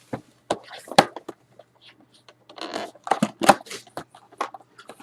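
A sealed hockey card box being opened and its wrapped packs handled: sharp clicks and taps of cardboard with crinkling, tearing rustles, busiest a little past the middle.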